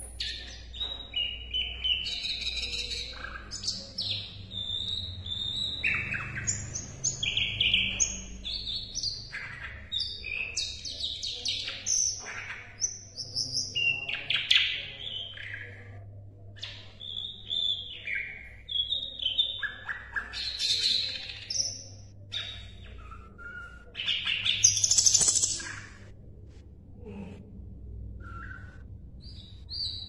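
Sikatan londo, a small flycatcher, singing a long, varied song of short chirps, whistled notes and quick trills with hardly a pause, loudest about three quarters of the way through. A steady low hum runs underneath.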